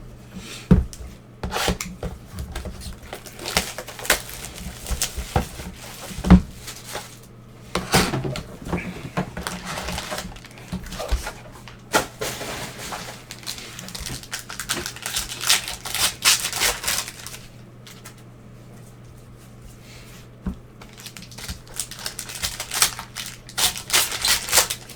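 Trading card packaging being torn open and crinkled, with irregular clusters of crackling, tearing and clicking as wrappers and cards are handled, over a faint steady low hum.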